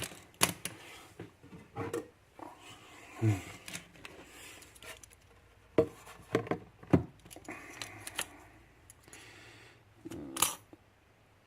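A picked challenge lock being handled and locked back up: scattered sharp metal clicks and knocks with some rubbing and scraping between them, the loudest knocks about six and seven seconds in.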